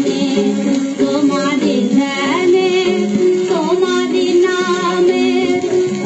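A woman singing a Bengali song over sustained instrumental accompaniment, her pitch wavering and bending, played from a gramophone record on a Philips record player.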